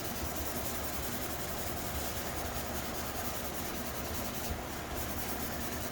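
Hand sanding of a helmet's clear coat with a fine-grit abrasive: a steady rubbing hiss.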